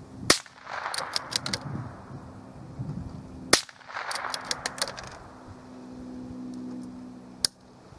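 Two shots from a scoped rifle, about three seconds apart, each followed by an echo that fades over about a second.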